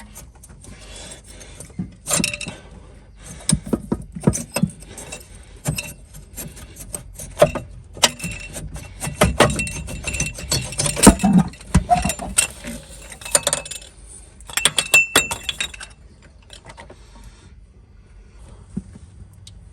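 Metal tools and engine parts clinking and clattering as they are handled, in a run of sharp knocks and clinks that dies down in the last few seconds.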